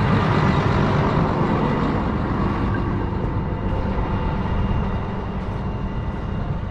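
Case IH tractor engine running steadily, easing off a little in the last couple of seconds.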